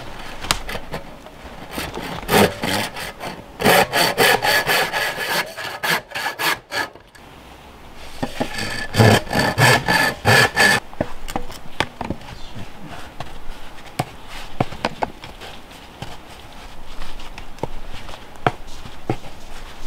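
Hand saw cutting through black plastic drain pipe in two runs of quick back-and-forth strokes, the pipe ringing under the blade. After the cut come lighter clicks and rustling as the pipe is handled.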